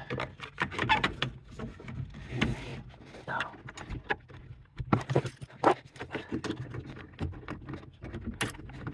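Irregular clicks, knocks and light rattles of parts being handled and fitted back under a car's dashboard, over a steady low hum.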